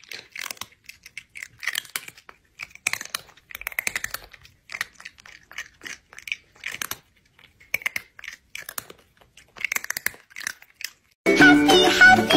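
Crunchy chewing, a run of irregular crunches and munches with short pauses, the sound of food being eaten. Music comes in near the end.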